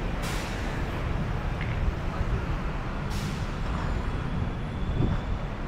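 Street traffic: the steady low rumble of passing road vehicles, with two short hisses, one right at the start and another about three seconds in.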